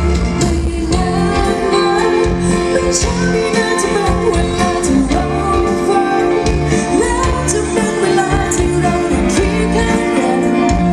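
Amplified pop music: a singer's voice over a backing band, played at a sound check.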